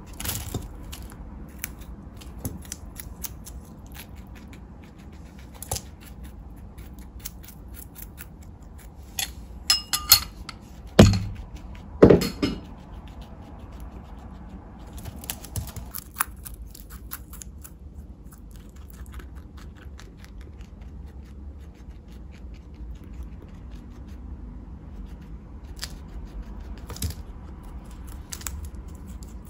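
Guinea pig crunching and gnawing on a raw carrot, a run of rapid crisp clicks. A few louder knocks come about ten to twelve seconds in.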